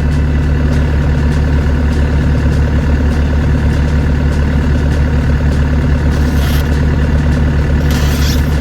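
Volvo ECR88 compact excavator's diesel engine running steadily, with two brief hisses near the end.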